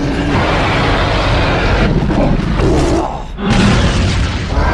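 Loud cartoon action sound effects: a dense, heavy low rumble, easing briefly a little after three seconds and then picking up again.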